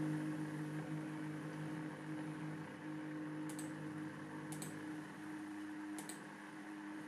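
Two HO-scale Proto 2000 model diesel locomotives, their cracked gears replaced, running together on track: a faint steady hum from the drives. From about halfway in come light paired clicks about once a second.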